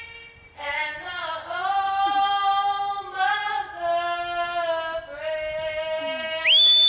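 A girl's solo voice singing the national anthem into a microphone in several held phrases. A loud, high, steady tone cuts in just before the end.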